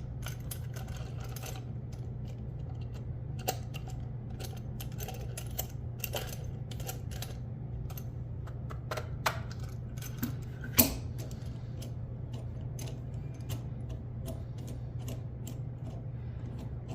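Scattered light clicks and taps of 3D-printed plastic chuck-vise parts being handled and twisted, with a sharper click a little before eleven seconds in. A steady low hum runs underneath.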